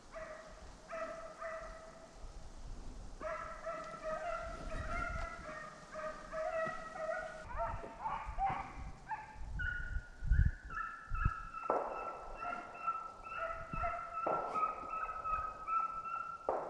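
A pack of deer hounds baying on a deer's trail, several dogs' long drawn-out cries overlapping at different pitches. A low knock about ten seconds in.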